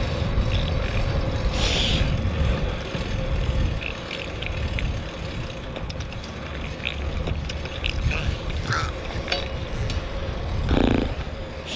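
Wind buffeting the microphone and road rumble from a fixed-gear bike being ridden, with a faint steady hum and scattered small clicks. A brief louder sound comes near the end.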